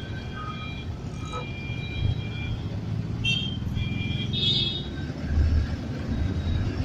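Street traffic heard through an open window of a moving vehicle: a steady low engine and road rumble that grows louder near the end, with horns honking several times.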